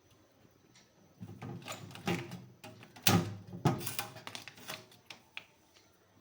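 Clunks and knocks of refrigerator parts being handled, with two sharp, loud knocks a little after halfway.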